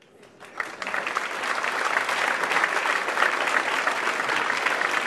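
Audience applauding: many hands clapping, swelling up over the first second and then steady.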